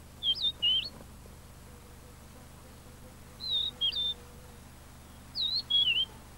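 A bird singing three short phrases about two and a half seconds apart. Each phrase is a pair of quick whistled notes that waver up and down in pitch.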